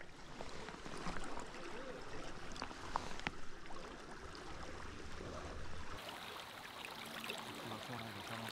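River water flowing steadily, with a few faint clicks scattered through it.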